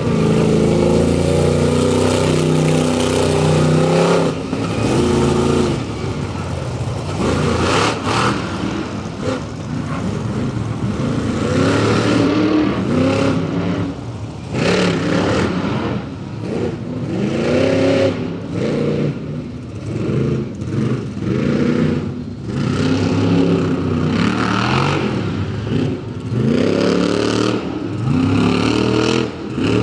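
Monster truck engine revving hard and dropping back again and again as the truck is driven around the dirt track, with a few sharp bangs and clatter in the middle.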